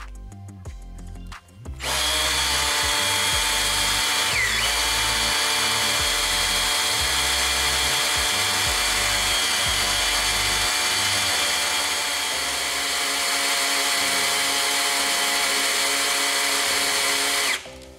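Ryobi cordless drill running steadily, spinning an oil pump priming tool in a 454 big-block Chevy's distributor hole to drive the oil pump and prime the engine's oiling system before its first start. It starts about two seconds in and cuts off near the end.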